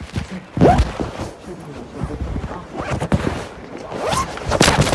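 Fabric rubbing and scraping against a covered phone microphone in irregular loud rasping bursts, the loudest about half a second in and a cluster near the end.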